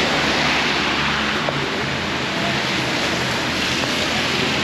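Steady hiss of rain and water, with a low engine hum running underneath.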